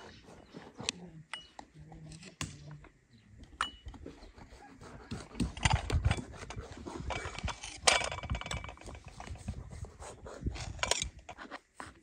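A knife cutting a cake in a metal baking pan, the blade scraping and clicking against the pan's bottom again and again, busiest in the middle stretch.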